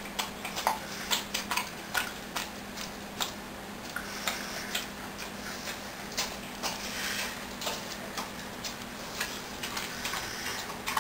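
A dog licking and smacking at sticky peanut butter: irregular wet clicks of tongue and lips, a few a second.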